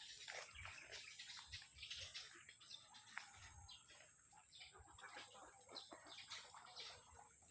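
Many birds chirping at once, a dense scatter of short faint calls, over a steady high hiss.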